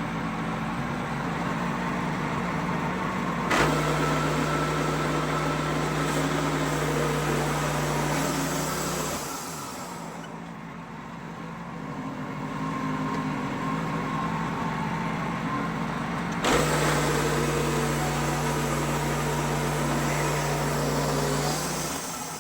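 Portable sawmill running steadily. Twice it goes suddenly louder and deeper with a click, about three and a half seconds in and again about sixteen seconds in, holding each time for five or six seconds before dropping back.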